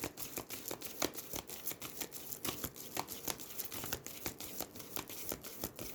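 An oracle card deck being hand-shuffled: a quick, irregular run of crisp card flicks and slaps, several a second, easing off at the end.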